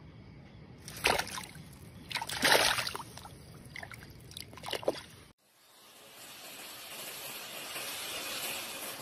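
Splashing and sloshing of muddy shallow water as a hand grabs an eel out of a hole, in several splashes, the loudest about two and a half seconds in. After a sudden cut about five seconds in, the steady hiss of a handheld gas torch's flame.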